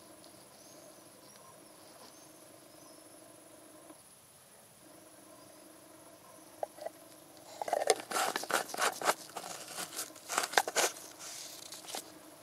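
Faint room tone, then a few seconds of rapid sharp clicks and rustles from about halfway in as gloved hands handle a plastic engine-oil bottle and screw its plastic cap back on.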